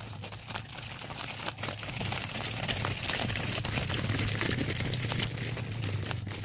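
Herd of cattle walking, hooves clattering and scuffing on the ground in a dense run of scattered clicks and rustling, over a low steady hum; it grows louder about two seconds in.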